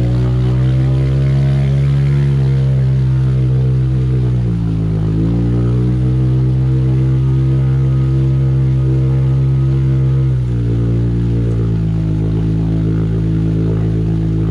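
Motor vehicle engine running at a steady speed. Its pitch dips and recovers about four and a half seconds in, then settles a little lower about ten seconds in.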